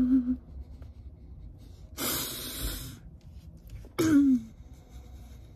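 A woman crying: a short sob at the start, a long noisy breath about two seconds in, and a sobbing cry that falls in pitch about four seconds in.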